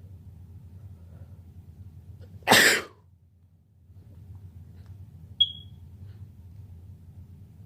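A man's single sharp allergy sneeze, about two and a half seconds in, over a low steady hum. About three seconds later comes one short high beep.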